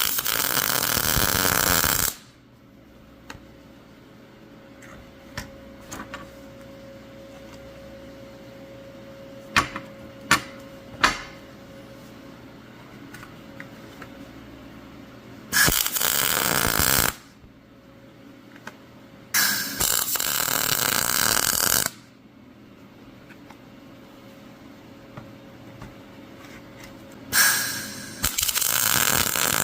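Electric arc welding on steel pieces in four bursts of about two seconds each, each starting and stopping sharply with an even crackle. A few sharp clicks and taps of handling come in between the bursts.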